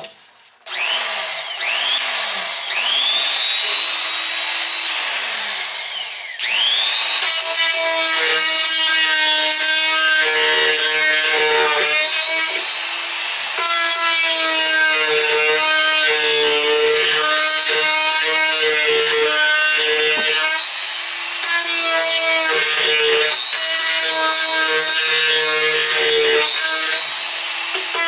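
Electric Makita die grinder spinning up in three short bursts with a rising whine, then running steadily as its burr grinds out the faucet mounting holes in a laundry tub to widen them for a new faucet. Its pitch sags and recovers a few times as the burr bites.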